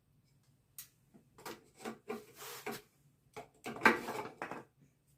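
Wooden beehive frame pieces being handled: a series of light knocks and clicks with scraping and rubbing between them, the loudest clatter about four seconds in.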